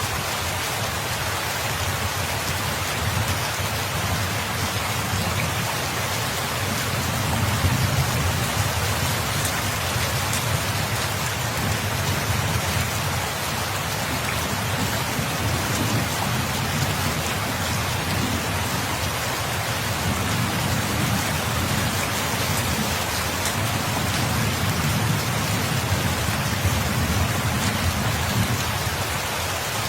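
Steady rain falling, an even hiss of drops hitting surfaces, with a low rumble underneath that swells and fades every few seconds.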